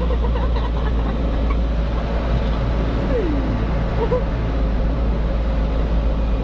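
A vehicle engine running with a steady low rumble, with a short falling tone about three seconds in.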